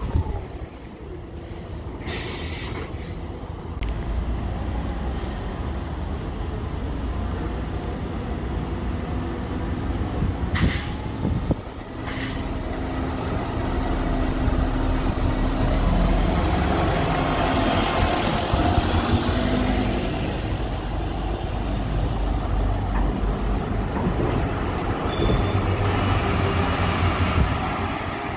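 Diesel city buses moving through a bus interchange, engines running and tyres rolling, with several short hisses in the first half. The sound builds in the second half as a bus passes close.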